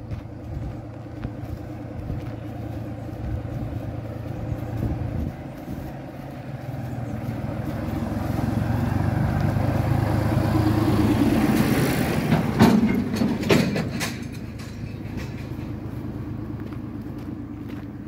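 A motor vehicle passes close by. Its engine and tyre noise grows louder to a peak about two-thirds of the way through, with a few sharp knocks near the loudest point, then fades off.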